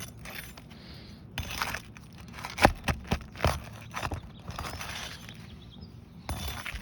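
Hand-tool work on asphalt roof shingles: irregular sharp knocks, the loudest about two and a half seconds in, between stretches of scraping and rustling as shingles and nails are worked loose.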